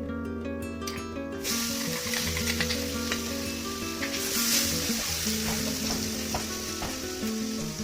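Food sizzling as it fries in a pan, with a spatula stirring and clicking against it, starting about a second and a half in. Background music with a steady bass line plays throughout.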